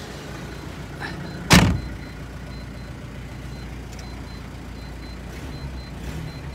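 Mazda Bongo Friendee's turbo diesel engine idling just after being started on glow plugs, a steady low rumble. A single sharp knock about a second and a half in is the loudest sound.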